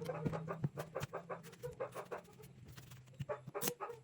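Chickens clucking amid many short clicks and knocks, over a low steady hum.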